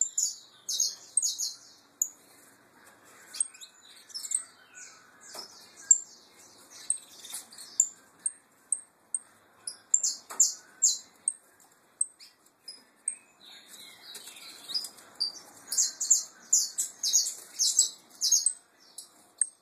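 Domestic canaries chirping and singing: short, high-pitched calls repeated through, breaking into quick runs of trilled notes about halfway through and again near the end.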